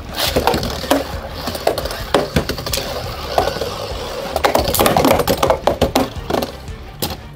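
Beyblade spinning tops whirring and clashing in a plastic stadium, with many sharp clicking hits as they strike each other.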